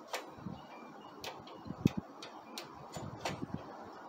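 Rear drum brake of a Honda CL50 Benly being adjusted by hand: about six irregular metallic clicks from the brake linkage and adjuster, with a few light knocks, the loudest just before the two-second mark.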